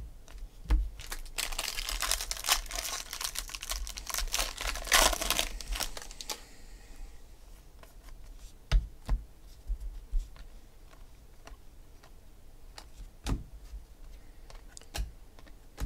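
A stack of baseball cards handled and shuffled, the cards sliding and snapping against each other: a dense crinkly rustle with many quick clicks for the first several seconds, then only scattered single clicks and taps.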